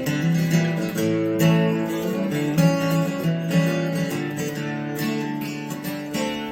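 Strummed acoustic guitar playing chords in a song's instrumental intro, country style.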